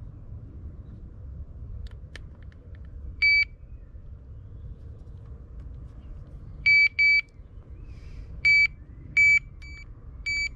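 Electronic bite alarm on a fishing rod rest giving short single beeps, seven in all, irregularly spaced, the last two quieter; the alarm has just been switched on with the line set in it.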